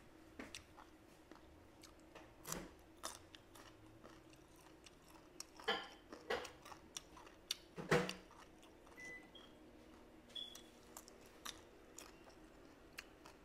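A person chewing crunchy raw vegetables close to the microphone: irregular crunches and wet mouth clicks, the loudest about six and eight seconds in.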